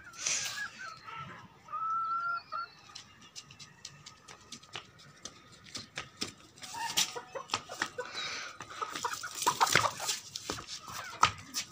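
Domestic chickens clucking and squawking as they are chased around. The calls grow louder and busier toward the end, when one hen is caught by hand.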